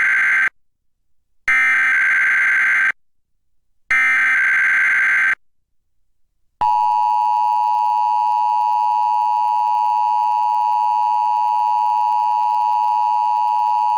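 Emergency Alert System test signal. It opens with the end of one burst of the SAME header data, then two more of these buzzy digital warbles, each about a second and a half long and a second apart. About six and a half seconds in, the steady two-tone EAS attention signal (853 and 960 Hz) starts and holds.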